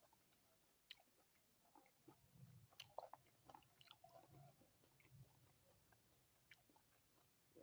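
Faint chewing of fruit, with scattered soft mouth clicks, mostly between two and five seconds in.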